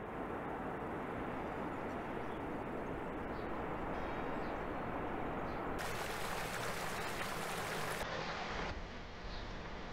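Steady rush of river water pouring over a weir. The hiss grows brighter about six seconds in, then drops back after two or three seconds.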